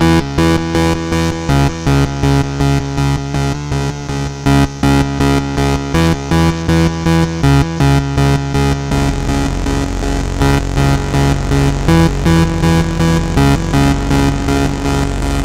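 Improvised electronic music from a Taller Bocuma KOMPASS synthesizer and a Korg Monotron: a pulsing sequence of synth notes, about two a second, over a low tone. About nine seconds in, the low end turns into a steady buzzing drone while the pulses go on.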